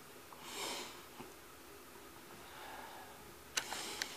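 A cat breathing and sniffing right at the microphone, with its fur brushing against it: a breathy sniff about half a second in, a softer one later, and two sharp clicks near the end.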